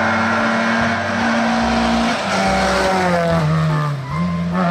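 Recorded car engine and tyre sound, like a racing-car sound effect, steady in pitch, then dropping a little after about three seconds and jumping back up near four seconds.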